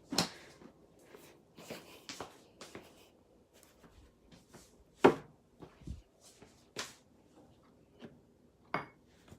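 Scattered light knocks and clicks of objects being handled, a handful of sharper ones spread through with quiet between.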